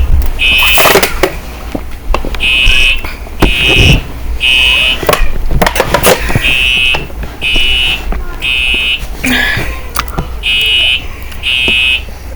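Simplex fire alarm horns sounding a loud buzzing tone in the temporal-three evacuation pattern: three half-second blasts, then a longer pause, repeating about every four seconds.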